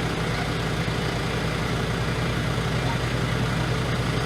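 A steady low mechanical hum, like a motor or engine running at idle, over a general background hiss.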